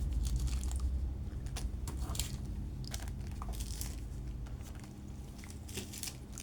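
Small plastic packets of electronic components crinkling and rustling as they are handled, with scattered light crackles over a low steady hum.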